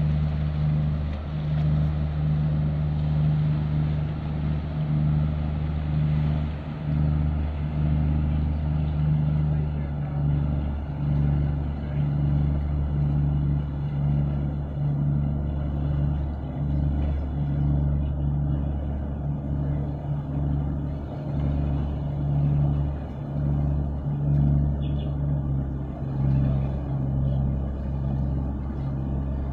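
Deep, steady diesel drone of a large container ship passing under way, wavering slightly in loudness.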